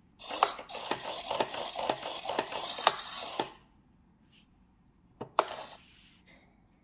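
3D-printed useless box at work: the toggle switch is flipped, then its servo-driven mechanism runs with about three seconds of dense plastic clattering and clicks as the lid and arm move. A second short burst of clatter comes about two seconds later as the lid pops open again.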